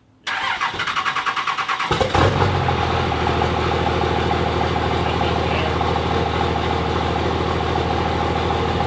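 A 5.9 L 24-valve Cummins straight-six diesel being cranked by its starter, catching after under two seconds of rapid cranking and settling into a steady idle. It is fuelled through a freshly installed AirDog II lift pump.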